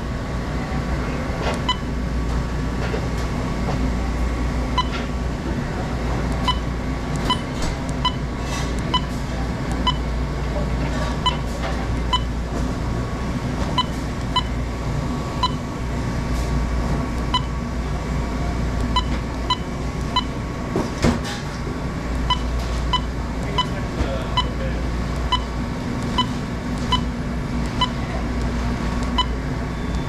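Frymaster 3000 fryer controller giving a short, high beep at each key press, at an irregular pace of roughly one a second, as a product's cook time and temperature are entered. A steady low hum runs underneath.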